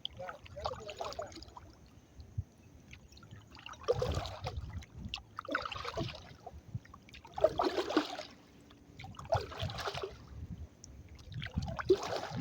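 Kayak paddle strokes: water splashing and dripping off the paddle blades in a steady rhythm, about one stroke every one and a half to two seconds.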